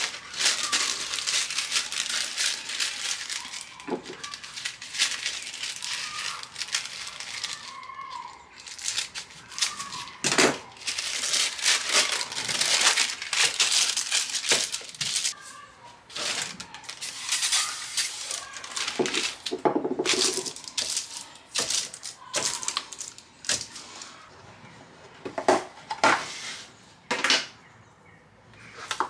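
Baking paper rustling and crinkling in irregular bursts as it is folded and pressed by hand into a fluted metal tart pan. Near the end, a few separate light knocks.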